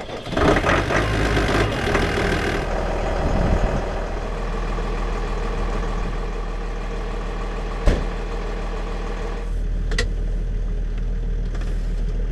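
Massey Ferguson 7495 tractor's diesel engine running, louder for the first two seconds, then idling steadily. Two sharp clicks come about eight and ten seconds in.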